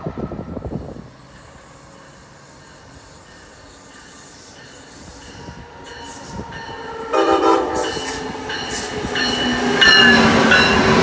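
Amtrak ACS-64 electric locomotive approaching with a steady rail rumble, then sounding its multi-note horn about seven seconds in and again as it passes close by near the end.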